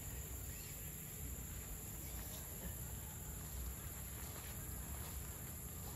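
Steady high-pitched drone of an insect chorus, over a low rumble.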